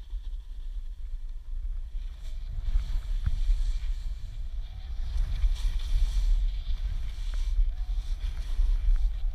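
Wind rumbling on the microphone of a selfie-stick camera carried by a downhill skier, with the hiss of skis sliding over snow that grows louder from about two and a half seconds in.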